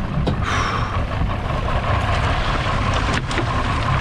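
Boat motor running low under wind and water sloshing along the hull, with a few sharp clicks, one just after the start and two close together near three seconds in.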